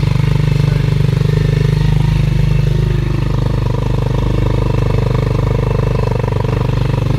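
Motorcycle engine of a tricycle (motorcycle with sidecar) running steadily as it drives along, with a fast, even pulse.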